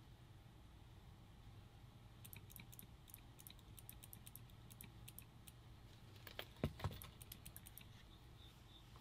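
Quick runs of light clicks from a WDP Angel Speed paintball marker's trigger being pulled repeatedly, then two louder clicks about six and a half seconds in. These are trigger pulls stepping through settings, such as the rate of fire, on the marker's board in programming mode.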